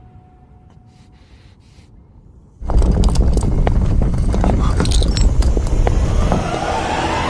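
A sudden loud rumble with dense rattling and scraping breaks in about two and a half seconds in, after a faint quiet stretch; a rising whoosh builds near the end.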